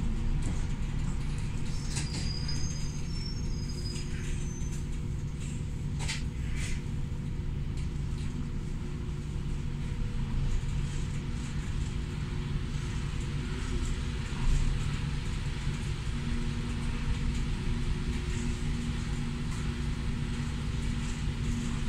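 City bus heard from inside the passenger cabin: steady engine and drivetrain hum with a low rumble as the bus creeps along in traffic. A few short clicks and rattles are heard, and there is one sharper knock about fourteen seconds in.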